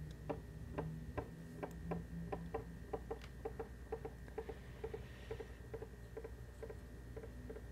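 Light, evenly spaced ticking clicks, about three a second.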